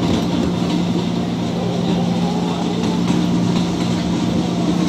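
JR 205 series electric commuter train running past at close range at a steady speed, with a steady hum over the running noise.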